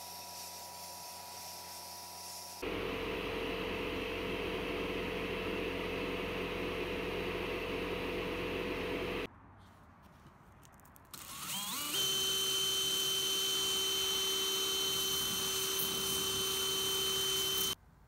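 Sandblasting gun hissing, followed by a louder steady run of blasting noise with a held hum. After a short lull, a cordless drill whirs up to speed and runs steadily with a high whine while the part it spins is blasted, then cuts off near the end.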